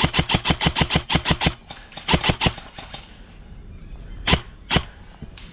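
Airsoft gun firing a full-auto burst at about ten shots a second, which stops about a second and a half in. A few single shots follow: about three close together around two seconds in, and two more just past four seconds.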